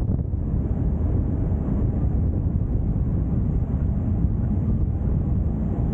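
Wind buffeting the microphone on the bow of a moving sightseeing ship, a steady low rumble mixed with the ship under way.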